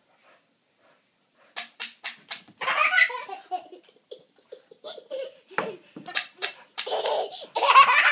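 Toddler laughing hard in bursts while playing with a dog, with a few sharp clicks just before the first burst. The loudest laughing comes near the end.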